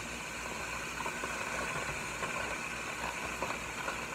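Butter and food sizzling in a hot skillet, a steady frying hiss.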